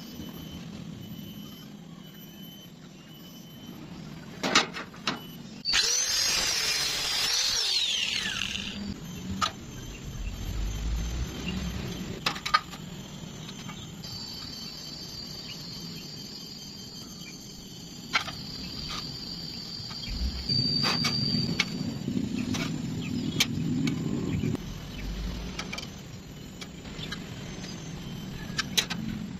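Metalworking noises: scattered sharp clicks and knocks over a low hum, with a brief high whine partway through.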